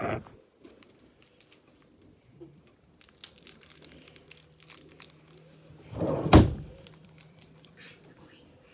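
Rustling and handling noise close to a phone's microphone, with one loud thump about six seconds in. A faint steady low hum runs under it from about two seconds in.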